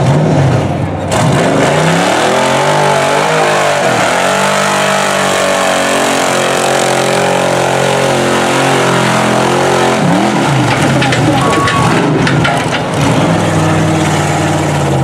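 Engine of a lifted mud truck on tractor tyres revving hard through a mud pit, its pitch dropping and climbing again several times.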